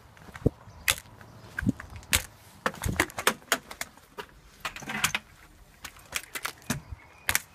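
Footsteps on a concrete path with the knocks and rubbing of a handheld phone being carried: a run of irregular sharp clicks and knocks, busier around three and five seconds in.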